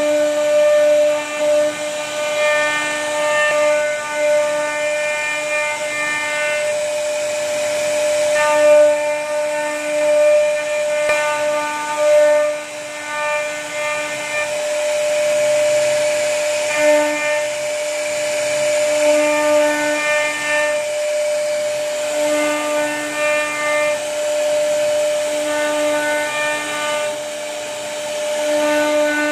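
CNC router spindle cutting a scroll pattern into a wooden board, with a steady high whine. A buzzier tone swells in and fades out in stretches of a few seconds as the bit moves through the cut.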